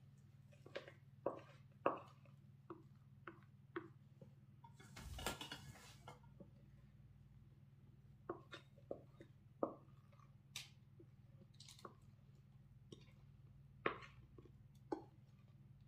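Faint, scattered clicks and knocks of kitchen utensils and baking pans being handled, with a short scraping rustle about five seconds in, over a steady low hum.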